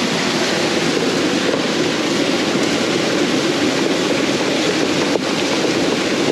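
Small waterfall and stream rushing over rocks close by: a steady, unbroken noise of falling and running water.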